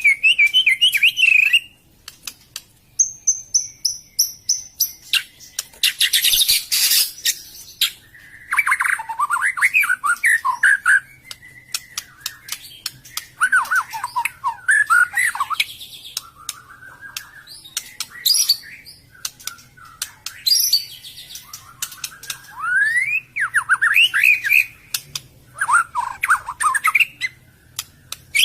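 White-rumped shama (murai batu) singing: phrases of rapid, varied whistled and warbled notes every few seconds, with sharp clicking notes between them and one harsh, rasping burst about six seconds in.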